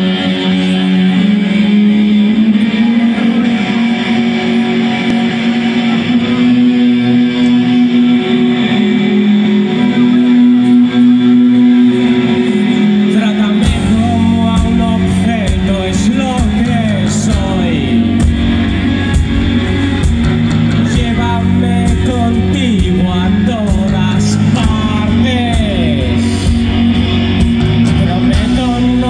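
Rock band playing live through a PA: guitars alone at first, then drums and bass come in about halfway, with a male voice singing over them.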